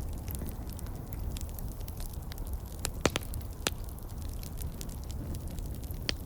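Campfire crackling, with small ticks throughout and a few sharp pops: a quick cluster about three seconds in and another just before the end, over a steady low rumble.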